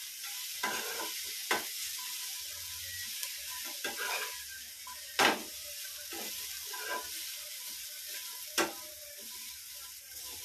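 Cauliflower pieces sizzling in oil in a frying pan as a slotted steel spatula stirs them. A steady high sizzle runs under scrapes and a few sharp knocks of the spatula on the pan, the loudest about five seconds in.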